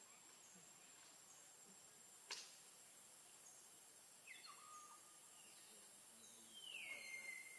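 Near silence: faint steady hiss of outdoor ambience, with a single sharp click a little past two seconds in. In the second half come a few faint high whistled calls, the last one gliding down and holding steady for about a second near the end.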